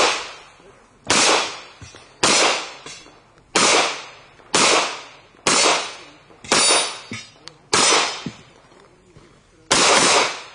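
Pistol shots fired one at a time, about eight of them at roughly one a second, each followed by a long echoing decay; a longer pause comes before the last shot near the end.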